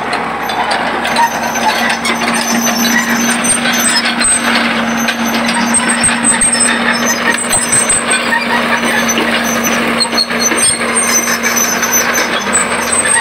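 Tracked excavator's diesel engine running steadily with a constant hum, with scattered knocks and crackles over it.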